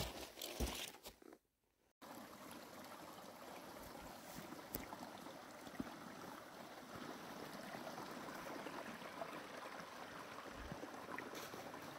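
Small forest brook running over stones: a steady, faint rush of water that starts after a brief silent cut about two seconds in. Before the cut there are a few knocks.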